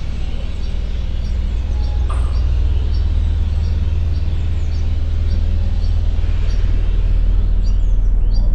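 Woodland field recording: a small bird repeats a short high chirp about twice a second over a loud, steady low rumble.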